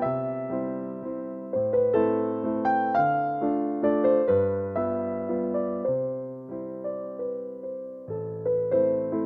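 Background music: a piano playing slow, gentle chords, each struck and left to fade, with the bass note changing every second or two.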